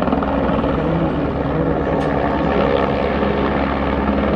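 Helicopter rotor and engine running steadily, with an even, fast rotor chop.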